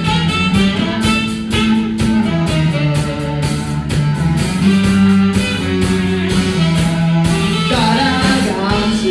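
A band plays the instrumental opening of a pop-rock song, with guitar, bass and a steady drum beat.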